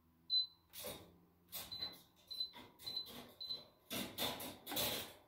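Induction hob touch controls beeping as the keys are pressed: a short, high beep near the start, then about five more at intervals of roughly half a second, each confirming a key press. Soft rustling noises come between the beeps.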